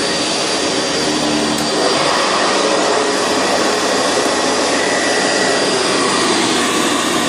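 Sanitaire SC679 upright vacuum cleaner running steadily while vacuuming carpet. Its motor and brushroll make a loud, even noise, and the sound shifts and gets slightly louder about two seconds in.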